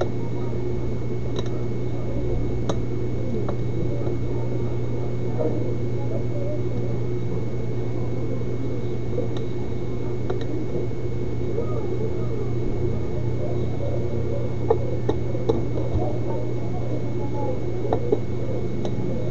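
Steady electrical hum with a faint high whine, and a few light plastic clicks and taps in the second half as the laptop's lid and screen assembly are handled.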